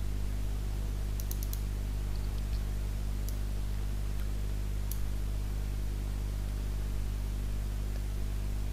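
Steady low electrical hum from the recording setup, with a few faint computer-mouse clicks in the first five seconds.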